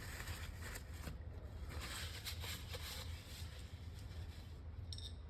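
Paper towel rustling and rubbing in irregular strokes as a car's electrical connector plug is wiped dry, over a steady low hum.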